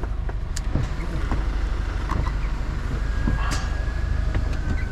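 Mercedes-Benz Actros truck's diesel engine running at low speed with a steady low rumble, with scattered short clicks and knocks throughout.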